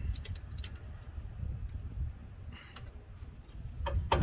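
A few light clicks and a short hiss over a low rumble of handling noise, as a brake bleeder is worked at the truck's rear caliper while the pedal is pumped.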